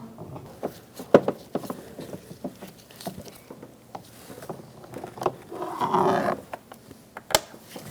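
Phillips screwdriver backing a screw out from under the door handle of a car's interior door panel: scattered small clicks and scrapes of the tool in the screw head, with a sharper click about a second in, a brief scrape a little after the middle and another sharp click near the end.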